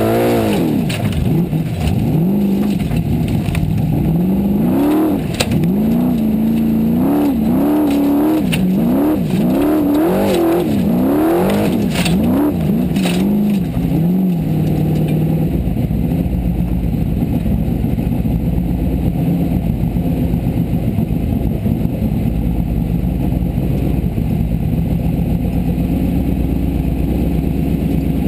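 Formula Offroad buggy's engine, heard from inside the cockpit, revving up and dropping back again and again under hard driving, with knocks and clatters from the car in between. About halfway through it settles to a steadier, lower drone.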